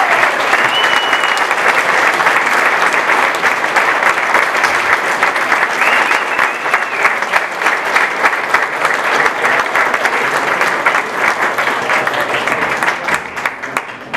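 Audience applauding: a room full of people clapping steadily, dying away near the end.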